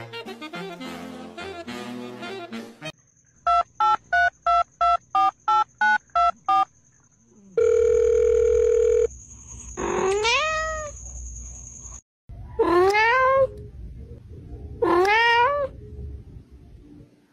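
Upbeat music ends after about three seconds, followed by a quick run of about ten short electronic telephone-keypad beeps and a steady tone lasting about a second and a half. A cat then meows three times, each meow rising and then falling in pitch.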